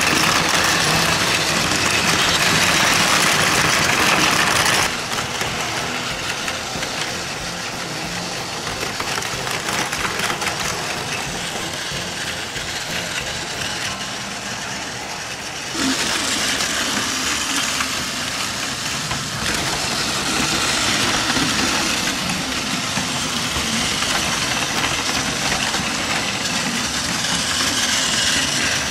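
Battery-powered Plarail toy trains running: the small electric motors whir and the wheels rattle along plastic track in a steady noisy drone. It drops sharply about five seconds in and comes back louder about sixteen seconds in.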